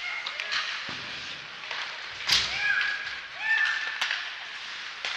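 Ice hockey play: sharp clacks of sticks and puck, the loudest about two seconds in, over the steady scrape of skates on the ice. Short shouts from players come between the clacks.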